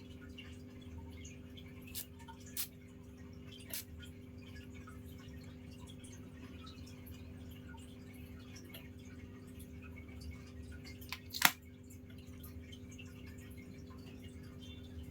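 Steady low hum with a few scattered sharp clicks, the loudest about eleven seconds in.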